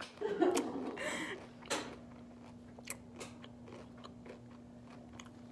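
Close-up chewing and crunching of a pickle being eaten, in scattered small crunches. A faint steady hum comes in after about two seconds.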